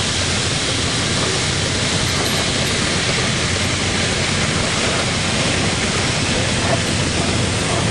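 Steam traction engine creeping past with a steady, even hiss of steam over a low rumble.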